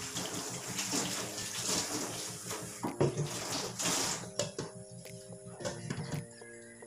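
Water poured from a plastic dipper splashing into a pot of whole eggplants, stopping about four seconds in. Then a few light clinks as a glass lid is set on the pot.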